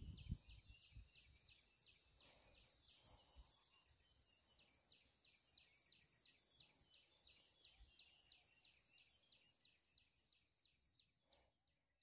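Near silence with faint insect noise: a steady high trill and a rhythmic ticking chirp about three or four times a second, fading out near the end.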